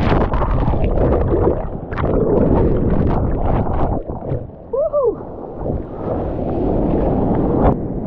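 Breaking shorebreak whitewater churning and rushing over a camera in the surf, dense and crackling, with water buffeting the microphone. About four seconds in the rush drops away and a short squeal rises and falls, then the wash builds again.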